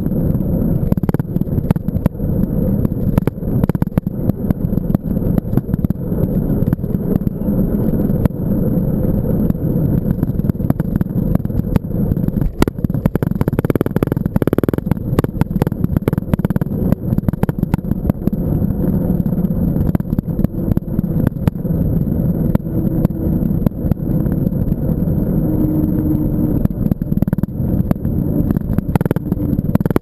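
Wind rushing over a bike-mounted GoPro's microphone as a mountain bike rolls along a paved road, with tyre rumble and frequent small rattles and knocks from the bike.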